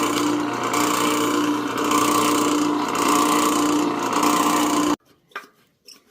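An electric power tool running steadily with a tone that pulses about one and a half times a second, then cutting off suddenly about five seconds in, followed by a few light clicks.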